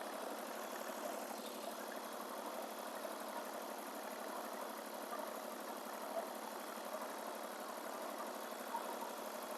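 Ford 4500 backhoe tractor's engine running steadily.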